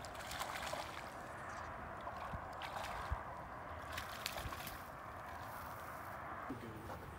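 Light splashing of a hooked bass thrashing at the water's surface as it is played in and lifted out, with a few sharp ticks over a steady background hiss.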